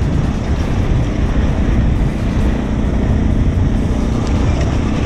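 Suzuki DR650's single-cylinder engine running steadily under way on a gravel dirt road, with heavy wind noise on the helmet camera's microphone.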